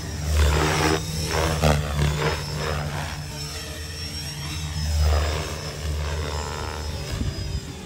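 Align 500 6S electric RC helicopter flying aerobatics: the main rotor blades buzz steadily under a motor whine that glides up and down in pitch as it manoeuvres. It swells louder on close passes, about half a second in and again around five seconds.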